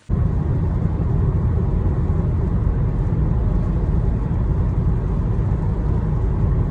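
Nissan Rogue on the move: a loud, steady low rumble of road and drivetrain noise that starts suddenly.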